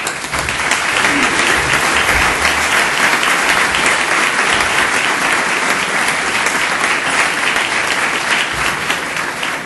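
Applause from a large seated audience in a legislative chamber: sustained clapping that swells in right at the start and begins to fade near the end.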